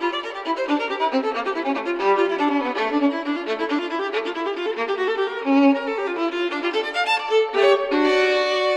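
Background music: a violin playing a melody of quickly changing notes.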